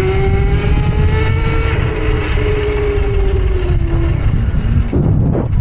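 Rizzler electric minibike's motor whining as it is ridden, its pitch rising a little and then falling away about four seconds in as the throttle eases, over a loud, rough low rumble.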